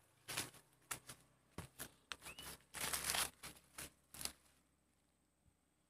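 Footsteps and rustling in dry leaves and grass: a dozen or so short crunches, one longer brush about halfway, stopping a little past two-thirds of the way in.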